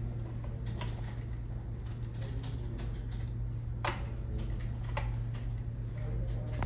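Scattered clicks of a computer mouse and keyboard, the loudest about four seconds in, over a steady low hum.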